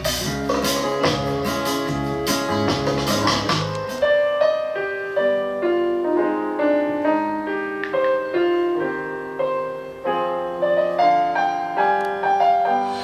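Music played through the AUKEY SoundTank Bluetooth speaker in a sound test. A full mix with bass and drums gives way about four seconds in to solo piano, single notes and chords with little bass.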